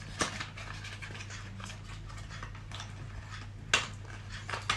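Cardboard carton being opened and a plastic tube slid out of it: soft rustling with a few light clicks, the sharpest a little before the end, over a steady low hum.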